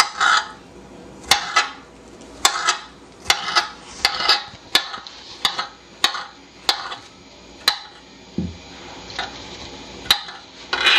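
Kitchen knife chopping soft eggplant and squash flesh on a wooden cutting board: irregular knocks of the blade against the board, about one or two a second.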